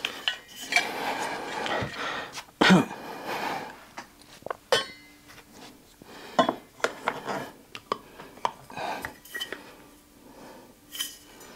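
YETI stainless-steel tumblers and their lids being handled and set down on a desk: scattered metallic clinks and knocks, the loudest a sharp knock about two and a half seconds in.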